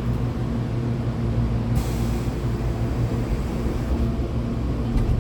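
Hankyu 8000-family commuter train with Toshiba GTO-VVVF inverter drive setting off from a station, its motor and running noise heard from inside the car. A short burst of air hiss comes about two seconds in.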